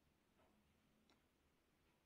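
Near silence: room tone with two faint short clicks.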